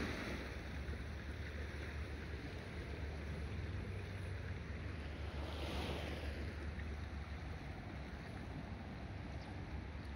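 Outdoor background noise: a steady low rumble like wind on the microphone, with a broad whoosh that swells and fades about six seconds in.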